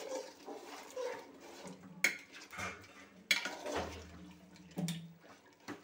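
A metal spatula stirring curry in a metal pot, scraping and knocking against the pot in a few sharp clinks.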